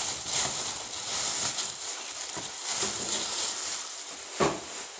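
Thin plastic shopping bag rustling and crinkling as it is handled and rummaged through, with a short sharp knock near the end.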